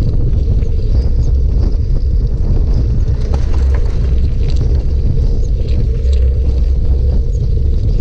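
Steady low rumble of wind buffeting the microphone of a camera on a bike riding along a gravel track, with scattered small ticks and rattles over it.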